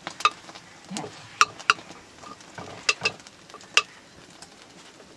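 A metal ladle stirring in a metal cooking pot over a wood fire, clinking against the pot about six times with sharp, ringing knocks in the first four seconds.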